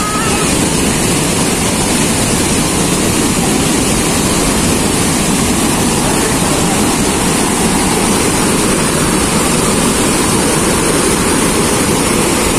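Manavgat Waterfall, a wide, low river cascade, rushing with a loud, steady noise of falling white water.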